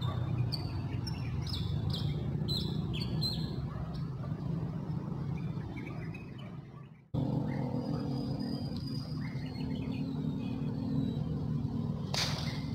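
Small birds chirping, short falling calls over a steady low hum, through the first few seconds. The sound cuts out for a moment about halfway through, then near the end comes a single sharp crack with a short ringing tail: an air rifle fired at fish in the water.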